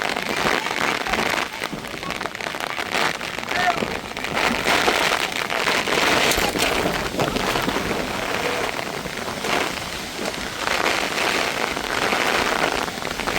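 Heavy rain pouring steadily onto surfaces, a dense, even hiss of drops.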